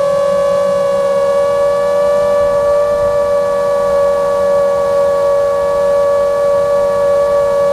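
Whine of a 5-inch FPV quadcopter's four T-Motor F60 Pro II 2207 2500Kv brushless motors spinning three-blade props at a steady cruise, heard from the onboard camera. The pitch is steady, rising slightly a second or two in.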